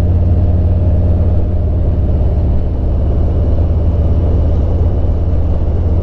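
Harley-Davidson Road King's Milwaukee-Eight V-twin engine running steadily at cruising speed, heard from the rider's seat over wind and road noise.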